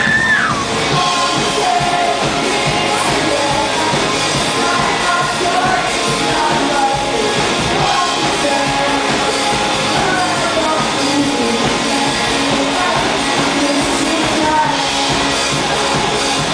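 A live pop-rock band playing loud amplified music, heard from the audience.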